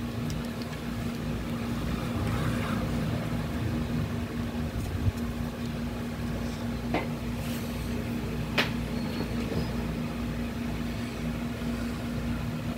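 A steady low machine hum, with a couple of short clicks in the second half.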